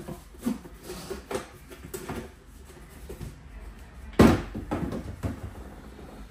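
Scattered light knocks and clicks from hookah parts and packaging being handled on a tabletop, with one louder thump about four seconds in.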